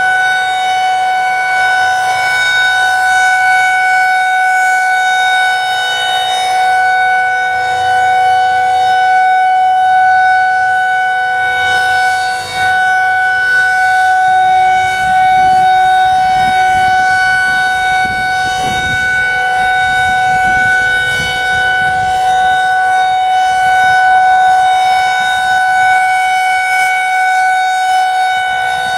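A Federal Signal 2001 SRNB rotating electromechanical outdoor warning siren sounding its Alert signal: one loud, steady tone held at a constant pitch, as in a routine monthly siren test.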